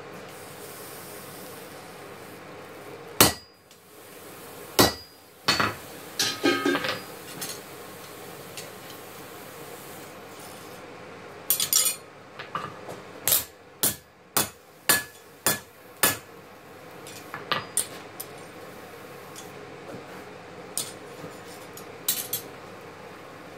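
Hammer and steel tools striking and clanking on a blacksmith's anvil during knife forging: irregular single metallic blows with pauses between them, a quick cluster of clinks about six seconds in, and a run of blows a little under a second apart past the middle, over a steady background hum.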